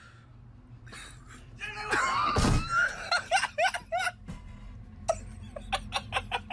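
A loud thump about two and a half seconds in, with a shriek, then people laughing in short repeated bursts.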